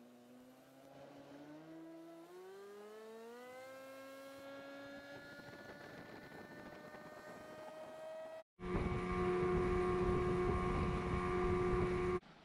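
Evinrude outboard motor driving a fishing boat: its pitch climbs steadily for about eight seconds as the boat speeds up. After a brief break it runs louder and steady at speed, then cuts off near the end.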